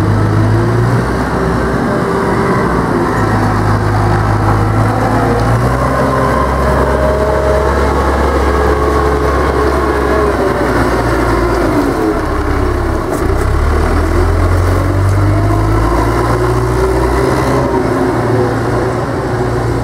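Telehandler's diesel engine running under load as it works, its engine note shifting up and down in steps as the revs change.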